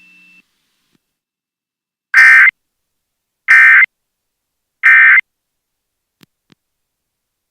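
Emergency Alert System end-of-message (EOM) data bursts: three short, loud, identical digital squawks about a second apart, marking the end of the alert.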